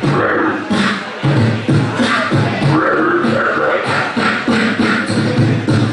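A beatboxer performing into a handheld microphone, amplified through a PA: a fast, steady stream of deep bass kicks, snare and hi-hat sounds, with some held vocal tones woven in.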